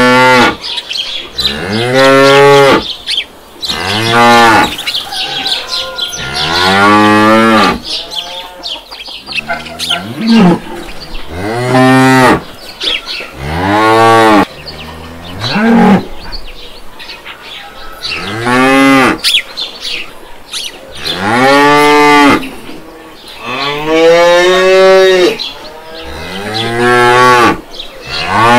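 Cattle mooing again and again: about a dozen loud, drawn-out moos a couple of seconds apart, each rising and then falling in pitch.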